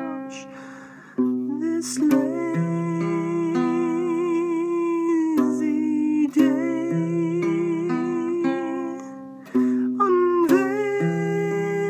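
Baritone ukulele chords played under a man singing long held notes with vibrato, in an improvised song; the voice drops away briefly near the start and again about ten seconds in.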